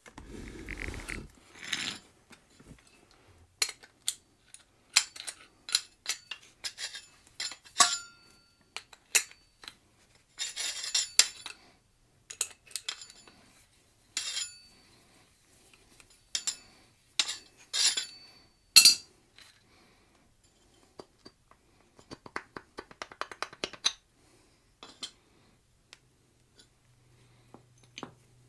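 Metal clinks, knocks and scrapes of a lawn tractor mower deck spindle being taken apart by hand, its pulley coming off the shaft. The strikes come irregularly and some ring briefly. The loudest comes about two-thirds of the way in, and a quick run of small clicks follows.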